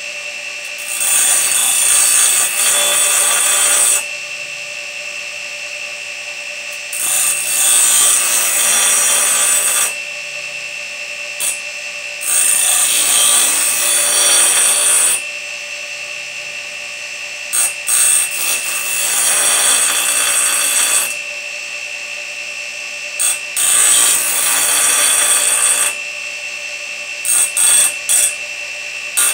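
Bench grinder running with a steady whine while the steel teeth of a band-sawmill blade are pressed to the grinding wheel one after another, sharpening them. There are about five grinding passes of two to three seconds each, with a few quick light touches in between.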